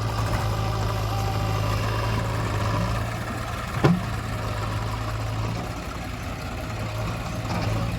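Diesel engine of a tractor or backhoe loader idling steadily with a low hum, easing off slightly in the middle, and a single sharp knock a little before halfway.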